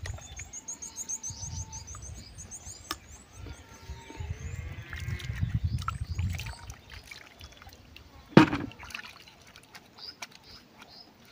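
Sweet potatoes being washed and handled in a basin of water, with sloshing and the odd click, and one loud knock about eight seconds in. Birds chirp rapidly in the first few seconds.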